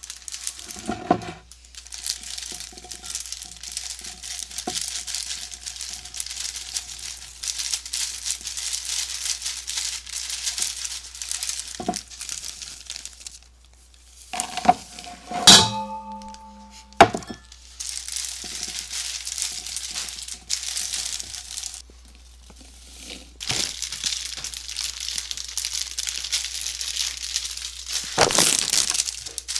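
A plastic bag of mini marshmallows crinkling as it is handled and the marshmallows are tipped out into a bowl and a glass measuring cup. About halfway through, a glass or dish clinks once with a short ringing tone, followed by a single click.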